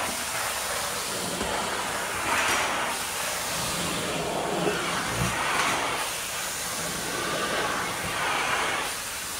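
Hard-floor extraction wand rinsing a marble floor and sucking the water back up: a steady hissing rush of suction that swells several times, once with each stroke of the wand.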